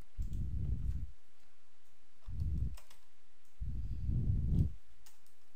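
Computer keyboard typing: a few scattered, sharp key clicks, along with three low, muffled thumps that are the loudest sounds.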